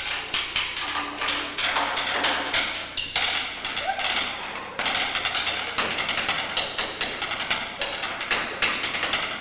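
Drumsticks tapping out a fast, uneven jazz solo on the stage floor and nearby surfaces, a dense run of dry clicks and knocks several to the second.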